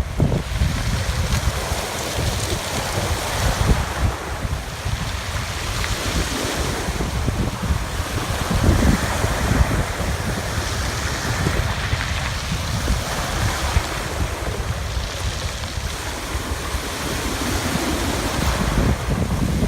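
Black Sea waves washing onto the shore, the surf hiss swelling and ebbing every few seconds, with wind buffeting the microphone in a steady low rumble.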